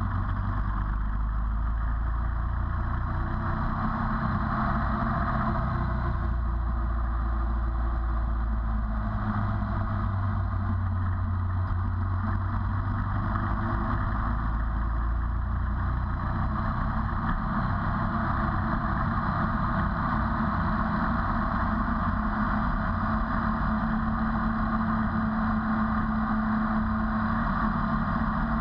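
Ducati 848's 90-degree L-twin engine running as the motorcycle is ridden through a series of bends, heard from a camera mounted on the bike. The engine note rises and falls with throttle over a continuous rush of road and wind noise.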